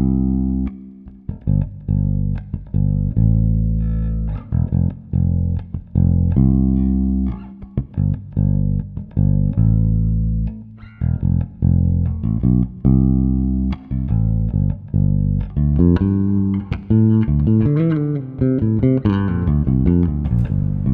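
Passive electric bass played through a Fuhrmann bass preamp pedal with its bass control boosted for a heavy low end. It plays a phrase of sustained plucked notes, then quicker, higher notes with slides near the end.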